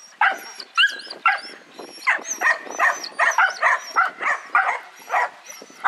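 A dog barking over and over, two or three short barks a second without a break.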